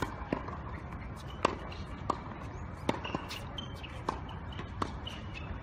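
Tennis ball being struck and bouncing on a hard court: a string of sharp, irregular knocks about once a second.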